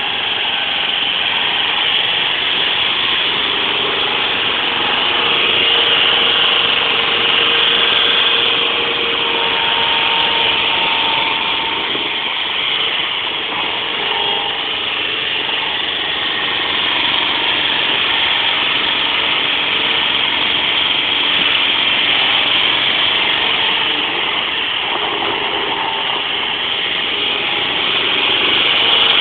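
Small forklift's engine running steadily as the machine drives and carries a pallet, its level swelling slightly a few times.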